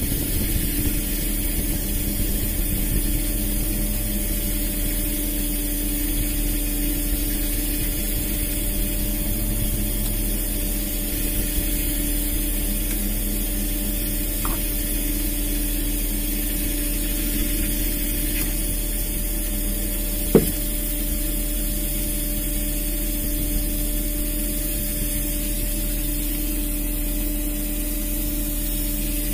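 A fishing boat's engine running steadily: a constant hum over a hiss, with one brief sharp sound about twenty seconds in.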